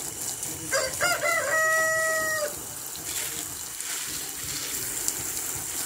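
A rooster crows once, about a second in: a few short broken notes, then a long held note lasting about a second. Underneath it, a garden hose sprays steadily onto a dog's wet coat.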